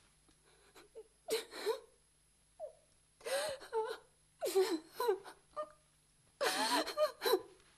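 A woman wailing and whimpering in distress: several short sobbing cries with wavering pitch, the longest near the end.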